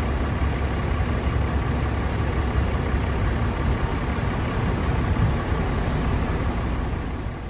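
Steady rumble of vehicle engines with a hiss over it.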